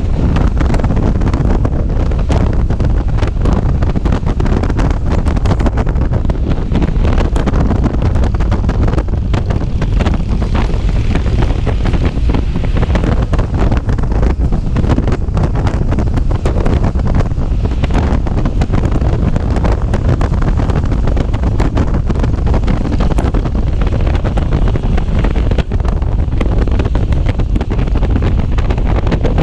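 Heavy wind buffeting on the microphone of a moving motorcycle, over a steady low engine and road rumble.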